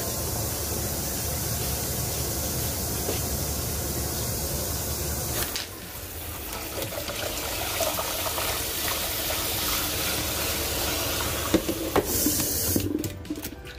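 Water running and splashing into a kitchen sink as boiled macaroni is drained through a metal colander. The sound changes about halfway through and ends in a few light ticks and drips.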